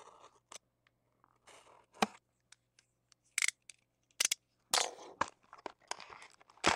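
Cardboard trading-card box and its packs being handled and opened: scattered clicks, taps and crinkly rustles, with a sharp knock about two seconds in and louder scraping and rustling in the second half.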